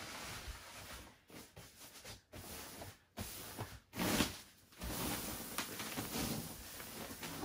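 A PVC bed sheet crinkling and rustling in uneven stretches as it is smoothed and tucked over a mattress by hand, with the loudest crinkle about four seconds in.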